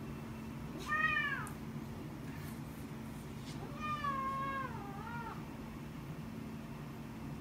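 Black-and-white domestic cat meowing twice: a short meow about a second in, then a longer meow about four seconds in whose pitch wavers and falls. A steady low hum runs underneath.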